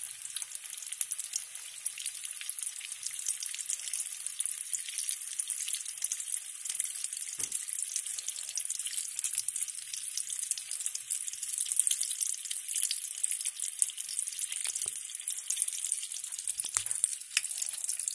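A battered slice deep-frying in hot oil: a steady, dense crackle of popping, bubbling oil, with a few light knocks partway through and near the end.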